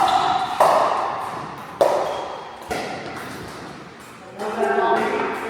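Pickleball paddles striking the plastic ball in a rally: four sharp pops at uneven spacing, each ringing away briefly. Near the end a voice-like sustained tone comes in.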